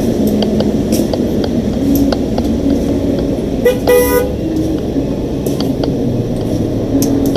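Steady road-traffic rumble with a single short vehicle horn toot about four seconds in.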